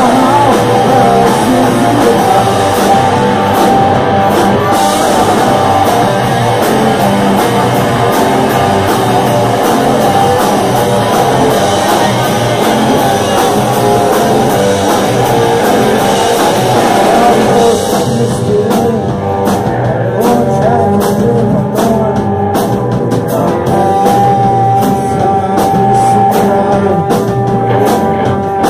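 Live rock band playing loud: distorted electric guitars, bass guitar and drum kit. About two-thirds of the way in the drumming thins out, and a guitar note is held near the end.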